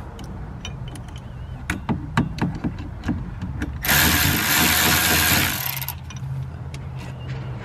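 Cordless electric ratchet running for about two seconds, about four seconds in, spinning a bolt out of the drive shaft coupler, after some light clicks of the wrench and socket being set on the bolt.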